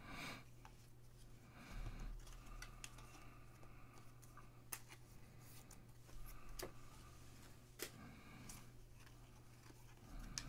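Faint handling of trading cards: cards sliding and flicking against each other as a stack is flipped through by hand, with scattered light clicks and a low steady hum underneath.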